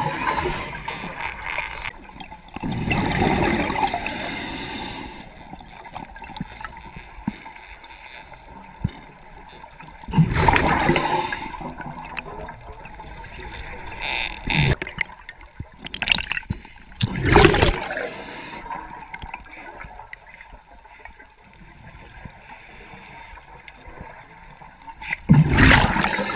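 Scuba diver's breathing underwater: exhaled air bubbling from the regulator in bursts of a second or two every several seconds, with quieter hiss between breaths.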